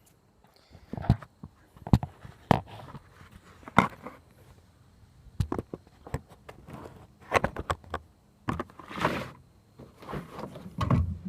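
Irregular sharp metallic clicks and knocks of a Kel-Tec PF9 9mm pistol and its magazine being handled and loaded, with a brief rustle of handling about nine seconds in.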